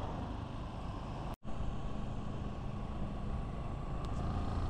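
Steady running noise of a motorcycle cruising on the highway: engine rumble mixed with road and wind noise. It breaks off in a brief dropout about a second and a half in, then carries on.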